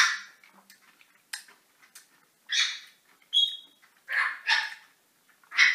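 A person making about five short, sharp breathy huffs and hisses, one after another with gaps between, one with a brief squeak in it, after tasting hot chili sauce from a spoon.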